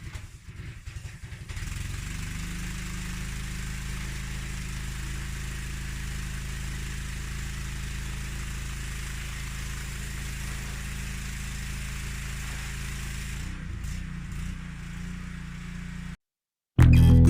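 Engine-driven water blaster (pressure washer) running steadily, its engine hum under the hiss of the water jet. It is uneven for about the first second and a half and changes near the end. Music cuts in just before the end.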